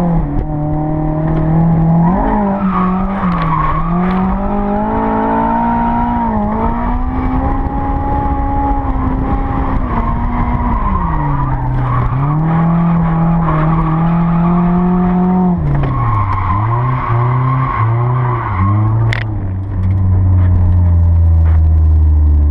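Honda S2000's four-cylinder engine, with aftermarket intake and exhaust, revving up and down and holding high revs through a drift run, with tyres squealing, heard from inside the open-top cabin. Near the end the revs drop to a low, steady idle.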